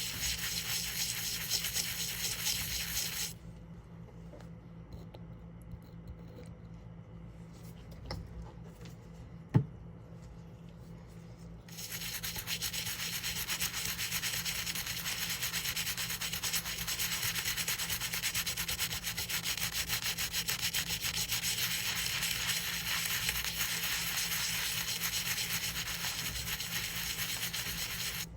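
Fast back-and-forth rubbing on a 1960 copper penny as it is cleaned. The rubbing stops about three seconds in, a single sharp click comes during the pause, and the rubbing resumes steadily about twelve seconds in.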